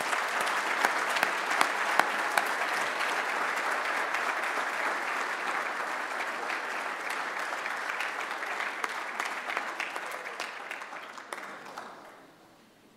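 Audience applauding steadily, fading out shortly before the end.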